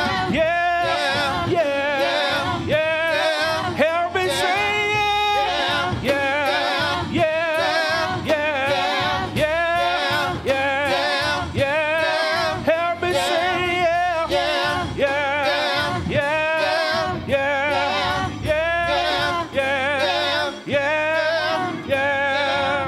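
A vocal trio, a man and two women, singing a gospel song through microphones, with the man's voice leading. The sustained notes waver with vibrato.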